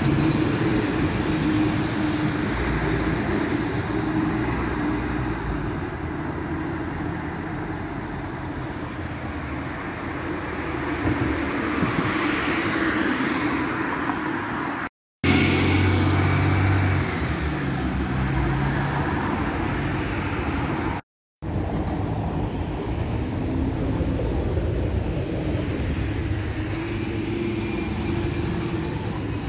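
Street traffic: a city bus's engine running as it pulls away, among passing cars and tyre noise. The sound cuts off abruptly twice, about halfway through and again some seconds later.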